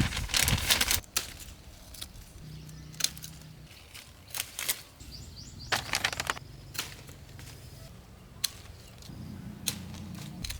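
Irregular rustling and crackling with sharp snaps and clicks, as of grape vines, leaves and stems being handled. The loudest bursts come in the first second and about six seconds in.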